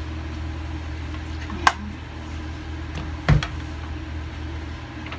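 Steady low hum of a lit gas stove burner heating oil in a frying pan, with a few light knocks, the loudest a little past three seconds in.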